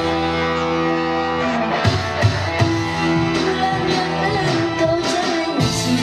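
Live band music led by an electronic keyboard, with a woman singing into a microphone. Held chords for about the first two seconds, then drums come in.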